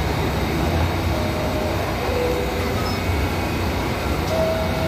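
New York City subway train moving along a station platform: a steady rumble of wheels and motors, with a few short, faint wheel squeals.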